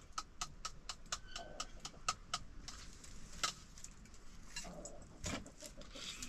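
Metal utensils clinking against steel dishes: a rapid run of sharp clicks, several a second, thinning out about halfway through.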